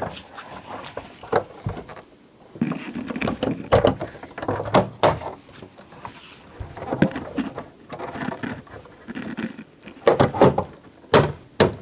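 Plastic rear spoiler being pressed onto a car's back door: a series of separate clicks and knocks as its four retaining clips snap into place, with the loudest cluster of snaps near the end.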